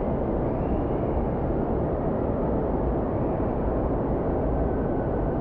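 Steady roar of an indoor water park: rushing water from the pools and rides, with faint distant voices now and then.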